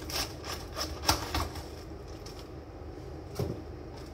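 Kitchen knife cutting through a head of lettuce: about five crisp crunching cuts in quick succession over the first second and a half, then one more cut about three and a half seconds in.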